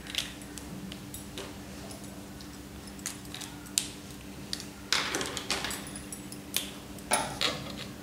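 Plastic felt-tip colour pens clicking and clattering against each other as they are handled, a string of sharp clicks mostly in the second half, over a faint steady hum.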